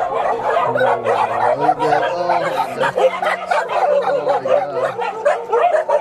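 A crowd of shelter dogs barking and yipping over one another without a break, an excited pack greeting people who bring food.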